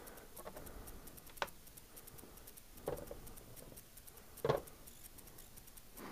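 Three light clicks or taps about a second and a half apart, the last the loudest, over faint room hiss.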